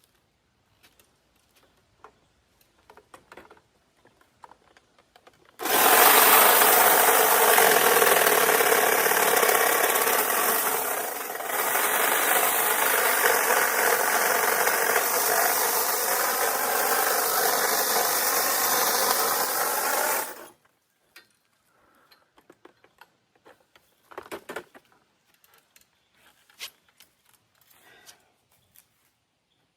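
A small motorised power tool running steadily for about fifteen seconds, its pitch wavering slightly and briefly dipping about halfway, then stopping; scattered faint clicks and rustles before and after.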